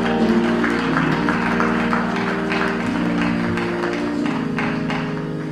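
Instrumental church music: held, sustained chords with scattered sharp hits over them.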